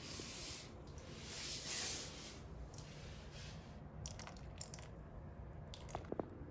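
Water rushing down a wooden water-slide marble run, a hissing flow for the first few seconds, then a few sharp clicks near the end.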